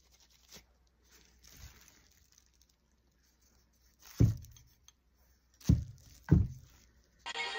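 Faint rustling, then three sharp knocks on a hard surface: one about four seconds in and two close together a second and a half later. Music starts just before the end.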